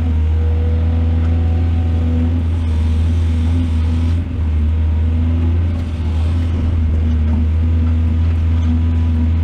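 Heavy diesel engine of an excavator running steadily at working revs, a deep continuous drone with a steady higher tone over it.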